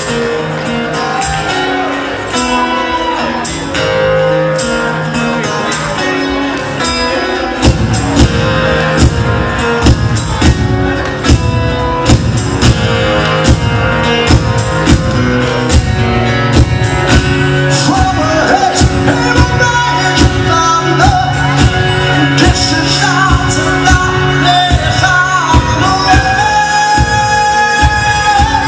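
Live band music with guitars and singing. A steady beat from drums and bass comes in about eight seconds in and continues.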